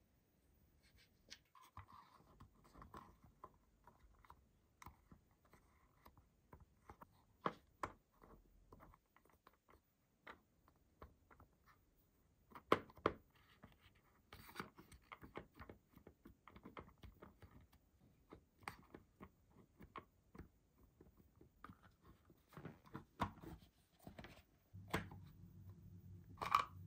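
Faint handling sounds of Play-Doh and a plastic playset: a plastic knife scraping through the dough, fingers pressing it into a hard plastic mould, and scattered sharp clicks and knocks of the plastic parts. A low steady hum comes in near the end.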